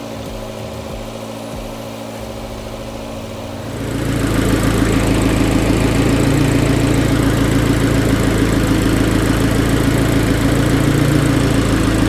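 Abarth's 1.4 T-Jet four-cylinder engine idling with the air conditioning running while A/C oil and refrigerant are charged into the low-pressure port. About four seconds in the sound steps up markedly louder, a steady rushing noise joining the engine hum.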